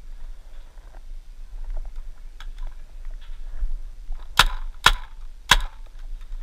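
Three sharp shots from a paintball marker, a little over half a second apart, about two thirds of the way through, with faint clicks and rustling before them.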